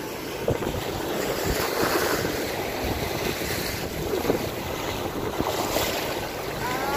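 Shallow surf washing up over wet sand and drawing back, a steady foamy rush, with wind buffeting the microphone.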